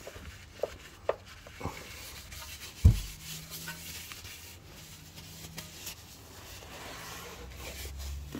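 A cloth rag rubbing and wiping oil off a car's steel oil pan, with a few light knocks early on and a single loud thump about three seconds in.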